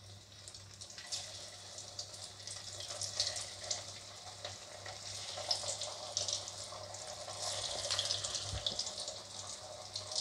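Freshly added potato pakoras deep-frying in hot oil in a metal wok: a steady sizzle with fine crackles. It grows livelier after the first second or so as the batter starts to bubble.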